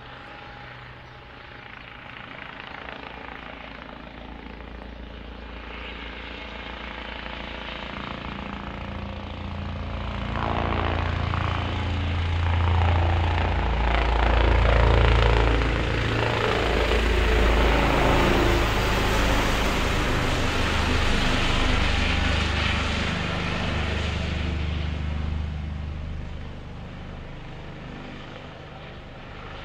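Eurocopter EC135 P2 helicopter, with twin turboshaft engines and a ducted Fenestron tail rotor, flying low overhead. The rotor thrum and turbine noise build as it approaches, are loudest as it passes directly overhead about halfway through, then fade as it circles away.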